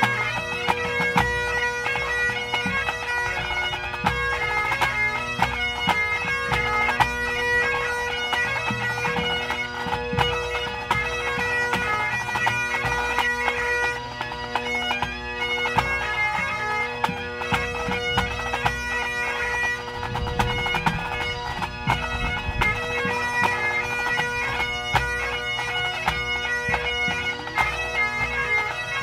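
Pipe band playing: Great Highland bagpipes with steady drones under a fast-moving chanter melody, accompanied by snare, tenor and bass drums.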